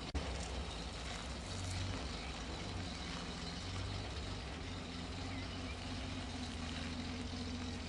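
Six-cylinder petrol engine of an old outside-broadcast van running steadily, a low even hum.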